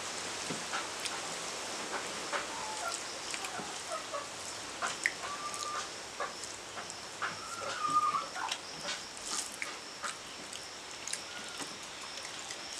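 Hand-eating sounds: fingers mixing rice and curry on steel plates, with chewing and scattered small clicks and lip smacks. A few short high calls sound in the background.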